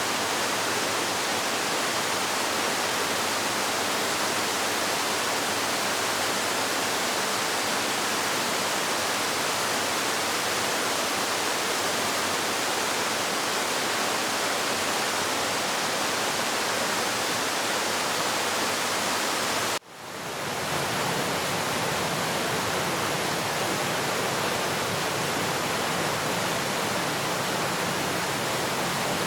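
Waterfall: a steady, even rush of falling water. About two-thirds of the way through it cuts out for an instant and fades back in, slightly deeper afterwards.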